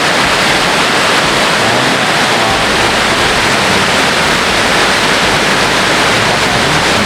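Large waterfall crashing down a tall drop close by, a loud, steady roar of falling water with no let-up.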